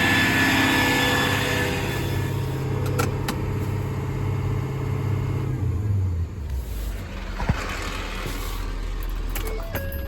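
Diesel engine running steadily at a raised speed, then dropping in pitch about six seconds in and settling to a lower running speed. There are a couple of sharp clicks along the way.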